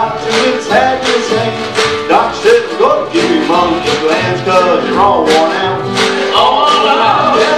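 A jug band playing live: strummed acoustic guitars with regular strokes and a sliding lead melody on top.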